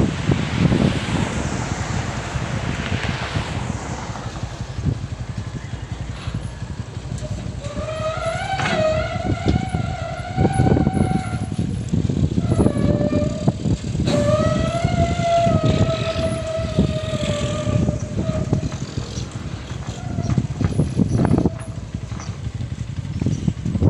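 Amphibious excavator's diesel engine running hard under load. Twice a high whine sounds over it for about four seconds, about a third of the way in and again just past halfway, with scattered knocks.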